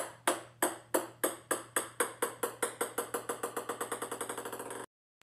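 A ping-pong ball bouncing on a hardwood floor: a run of sharp ticks that come faster and faster and grow quieter as the bounces shrink, until it cuts off suddenly near the end.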